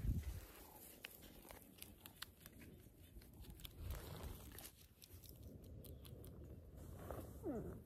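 Faint, scattered crackles and rustles of dry pine needles and twigs being moved about, mixed with knocks from the camera being handled and set down.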